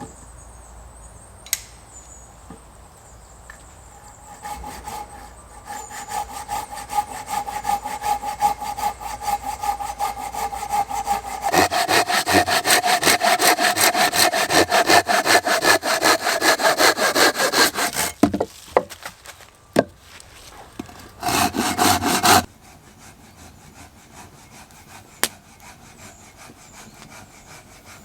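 Hand saw cutting wood in rapid back-and-forth strokes. They start softly about four seconds in, grow louder, and stop about eighteen seconds in, with a short final burst of sawing a few seconds later.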